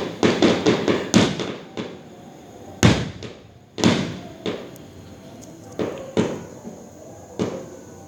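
Fireworks going off: a series of sharp bangs with echoing tails, several in quick succession at first, then bangs spaced a second or so apart, the loudest about three and four seconds in.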